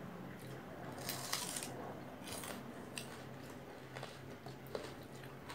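Crisp crunches of raw onion being bitten and chewed, the loudest about a second in. Then fainter scrapes of fingers mixing rice on a ceramic plate.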